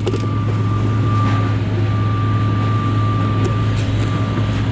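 Heavy machinery running steadily: a loud, constant low drone with a thin steady whine above it and a few light knocks.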